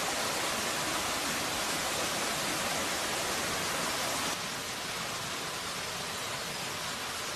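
Steady rushing hiss of flowing stream water, a little quieter after about four seconds in.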